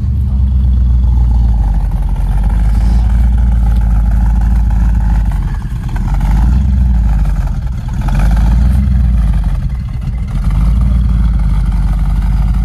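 Dodge Challenger convertible engine running with a loud, deep idle, the level dipping briefly twice.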